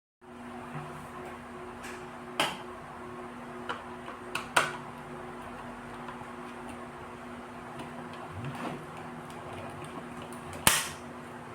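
Several sharp clicks and taps of small hard objects being handled, about five in all, the loudest near the end, over a steady low hum.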